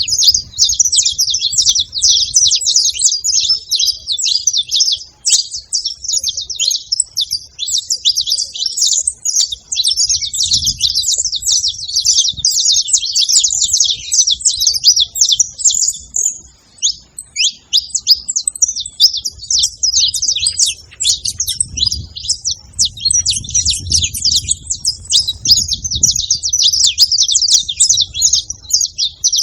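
Saffron finch calls and song: a dense, unbroken stream of rapid high chirps, with a brief lull about halfway through.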